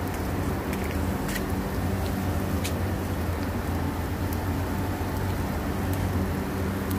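A steady low mechanical hum, with a few faint sharp clicks.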